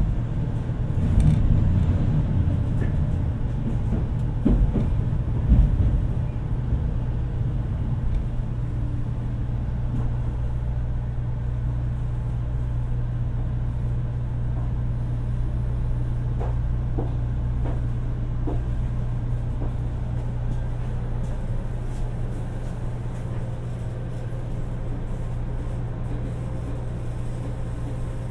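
Steady low hum inside a 500 Series Shinkansen car, with a few knocks and thumps in the first six seconds.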